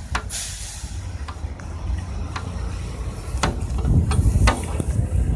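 Wind buffeting a handheld phone microphone while walking outdoors: an uneven low rumble that grows louder about three seconds in, with scattered clicks and taps from handling or footsteps.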